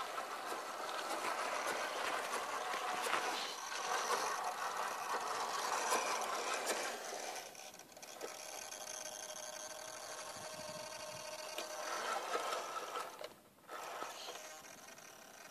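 1/10-scale RC crawler on an RC4WD chassis and drivetrain driving over gritty rock: its tyres crunch and scrabble over loose grit. From about halfway there is a steady whine from its electric motor and geared drivetrain, broken by a short drop-out near the end.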